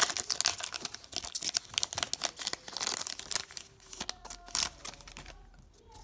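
Foil wrapper of a 2016-17 Fleer Showcase hockey card pack being torn open and crinkled by hand: a dense run of crackles that thins out after about three and a half seconds.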